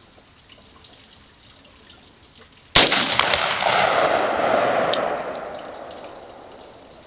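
A single shot from a Bushmaster AR-15 rifle fired at a large chunk of ice, cracking out suddenly about three seconds in. A long noisy tail follows and fades away over about three seconds.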